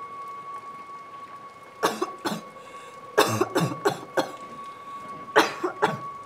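A sick woman coughing in fits: two coughs about two seconds in, a run of harsh coughs around three to four seconds, and another fit near the end. A steady high-pitched tone hums underneath.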